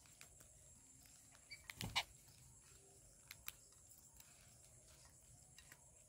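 Faint scattered clicks and taps of babblers and a myna pecking grains off a concrete ledge, with one louder knock about two seconds in.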